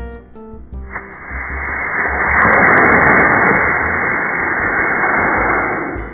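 Model rocket motor firing at lift-off, slowed down: a steady rushing noise that rises about a second in, is loudest midway and fades near the end. Background music plays underneath.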